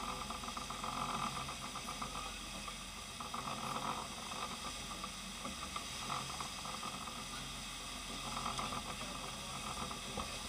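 Sport-fishing boat under way: a steady engine hum under the hiss of churning wake water behind the stern, with the rush of water swelling every two or three seconds.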